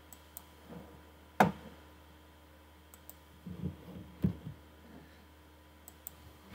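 Computer mouse clicking, with a few duller knocks between the clicks. The loudest is one sharp knock about a second and a half in.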